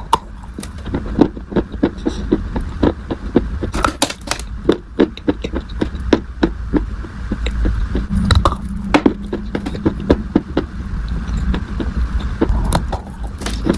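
Dried clay being crushed: a quick, irregular run of crisp crunches and cracks as it breaks and crumbles, over a faint low hum.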